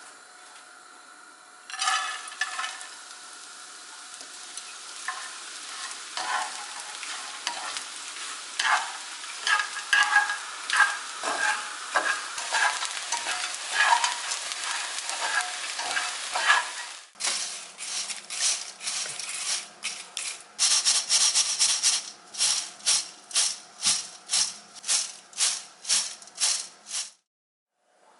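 Dried anchovies being stir-fried in a pan, sizzling and rattling as a spatula stirs them. After about 17 s the stirring turns into sharp, even strokes at about two a second, which stop abruptly near the end.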